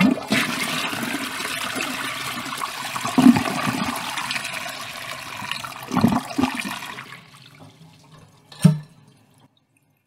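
Toilet flushing: a rush of water for about seven seconds that tails off, followed by a short thump near the end.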